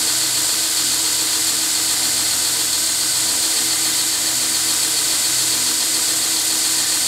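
2x72 belt grinder running steadily with the motor turned down on its VFD: an even electric-motor hum under a high hiss from the abrasive belt running over the wheels.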